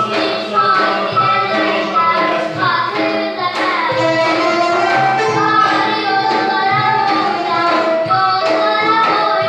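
A long-necked plucked lute playing a melody over a steady beat of large frame drums (qaval).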